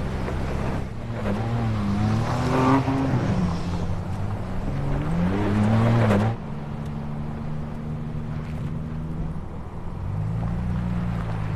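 Engine of a Ford Bronco Raptor, a twin-turbo 3.0-liter V6, revving up and down while driving, with road and tyre noise. About six seconds in the sound changes abruptly to a steadier engine note.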